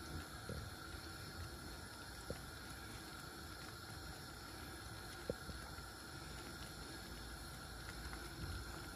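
Faint, steady sound of a creamy curry simmering in a clay handi pot over a gas flame. Two soft ticks come about three seconds apart.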